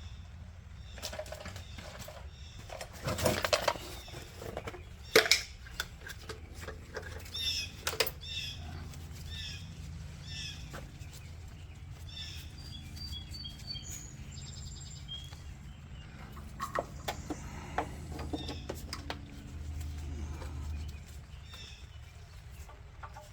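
Scattered metal clinks and knocks of hand tools and brake parts during work on a rear disc brake caliper, with short high chirps repeating in the middle stretch over a steady low hum.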